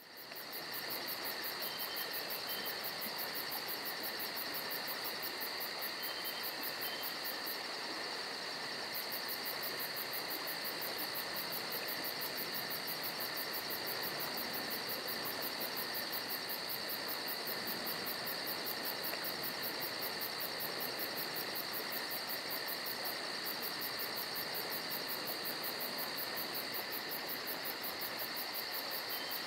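Night insects chirping steadily, crickets or bush crickets, with a fast, even pulsing trill very high up that stops twice for about a second, over a steady hiss.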